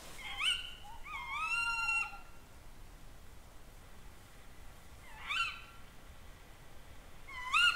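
Tawny owl calls: four short calls that each sweep up in pitch, the second one held longer before it drops away.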